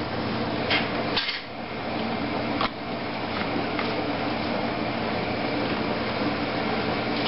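Steady background hum and hiss, like a fan or appliance running, with a few light clicks in the first three seconds.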